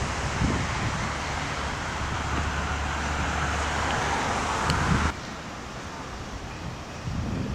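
Wind rumbling on the camera's microphone over a steady outdoor rush that swells, then drops abruptly about five seconds in to a quieter outdoor hiss.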